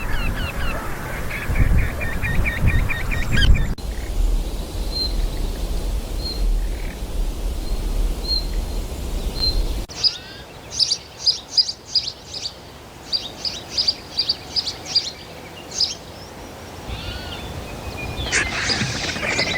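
Wild birds calling in three short clips. First comes a quick run of honking calls with wind rumble, then thin high chirps about once a second, then bursts of rapid high-pitched chirps.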